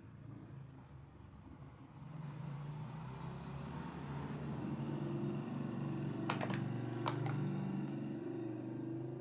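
A battery-powered toy construction vehicle running, a low buzzing drone that grows louder about two seconds in. A few sharp clicks come about six to seven seconds in.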